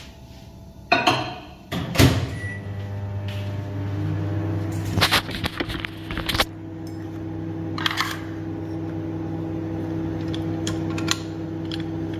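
Microwave oven running with a steady electrical hum, heating milk. The hum starts about two seconds in, just after a clunk and a short beep. Knocks and clatter of espresso equipment being handled sound over it, loudest around the middle.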